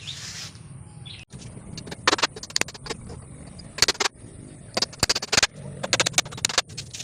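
Sharp knocks on wood in quick clusters of several strikes, starting about two seconds in, typical of tapping joints with a hammer or mallet. Birds chirp in the background near the start.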